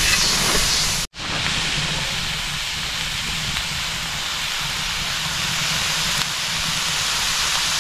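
Steady hiss and sizzle of food cooking on a plow-disc griddle over a wood-fired stove, with a low wind rumble underneath. The sound cuts out for an instant about a second in, then the hiss continues unchanged.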